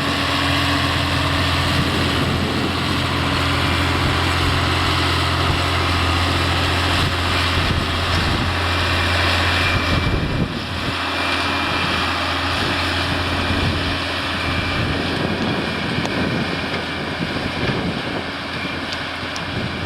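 Massey Ferguson 6465 tractor engine running steadily under load while pulling a four-furrow reversible plough. The sound eases briefly about halfway through.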